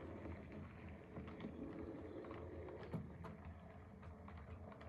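OO gauge model train running along the track: a faint steady hum of the motor and wheels with irregular small clicks, growing a little fainter toward the end as it runs into the tunnel.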